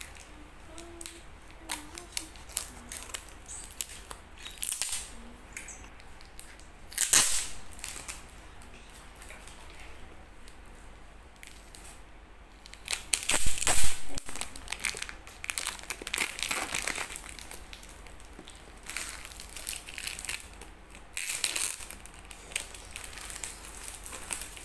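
Clear plastic shrink-wrap on a phone box crinkling and crackling as it is cut with scissors and peeled off by hand, in irregular bursts, loudest about seven seconds and again about thirteen to fourteen seconds in.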